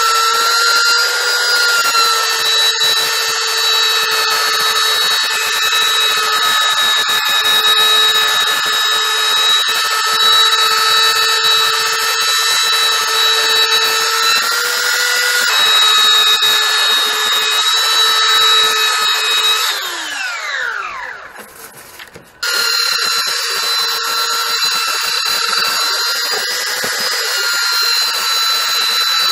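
Handheld Mastercraft electric power tool working a glued-up wooden block, its motor running with a steady high whine. About twenty seconds in it is switched off and winds down with a falling whine, then cuts back in running at full speed.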